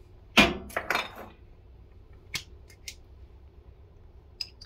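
Kitchenware clinking and knocking against a steel cooking vessel: a sharp knock about half a second in, a quick cluster around one second, then a few lighter taps.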